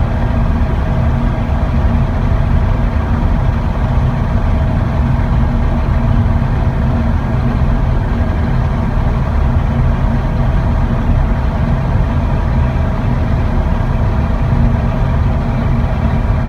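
Large diesel engine of harvest machinery running steadily at a constant speed, with a deep, even drone.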